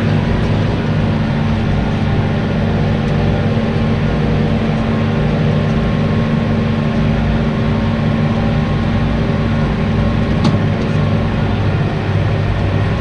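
Tractor engine running steadily under load while mowing grass, a constant even drone, with one faint click about ten and a half seconds in.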